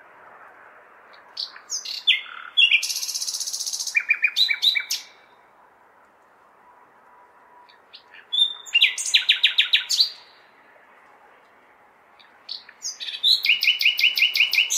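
Nightingale singing: three song phrases a few seconds apart, each built of rapid repeated notes and trills, over a steady hum of city background noise.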